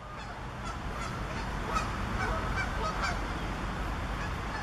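Birds calling, a run of short repeated calls about twice a second, over a steady low outdoor rumble.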